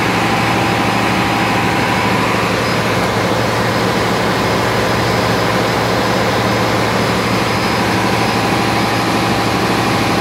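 Steady drone of a running Cummins QSM11 inline-six diesel genset in a ship's engine room, a constant hum that holds one even speed throughout.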